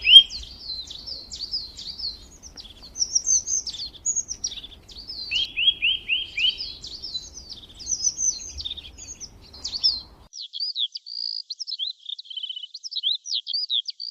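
A songbird singing a long, varied song of quick high chirps, whistles and trills, with runs of four or five lower down-slurred notes at the start and again about halfway through.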